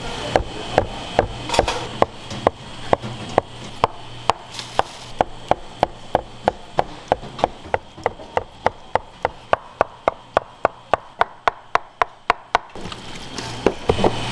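Cleaver chopping through a block of soft, translucent jelly into a wooden cutting board, in an even run of sharp knocks. The knocks speed up from about two and a half to about four or five a second, then stop near the end.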